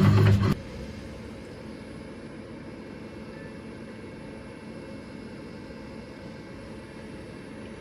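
Music that cuts off abruptly about half a second in, leaving a steady low hum with a faint hiss.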